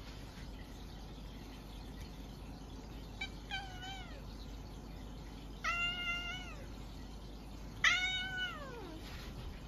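A cat meowing three times, each call sliding down in pitch at its end. The first is short and faint; the last, near the end, is the loudest and longest.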